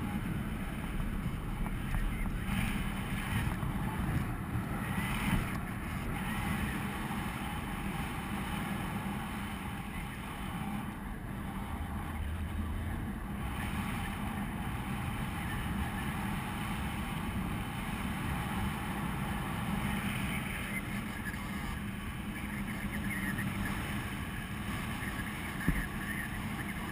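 Steady rush of wind buffeting the microphone of a camera on a paraglider in flight, deepest in the low end, with no engine.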